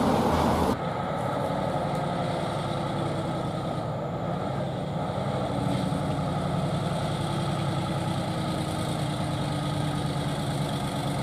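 Diesel engine of a Mitsubishi Fuso Super Great truck running steadily as it approaches and rounds a bend, with a low, even engine note. For the first second a louder rush of heavy traffic noise cuts off abruptly.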